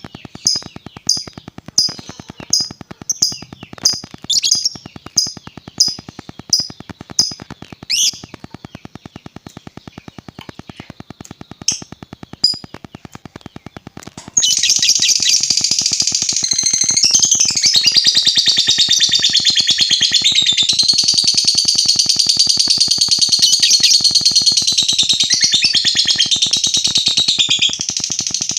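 Lovebird calling: sharp high chirps repeated about twice a second, then about halfway through a sudden loud, long continuous trill, the ngekek that lovebird keepers prize.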